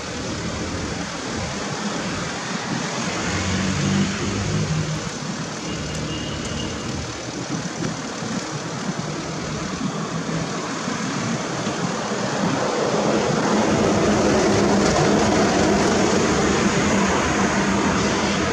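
Road traffic noise, motor vehicles running and passing; the noise grows louder about twelve seconds in and stays loud.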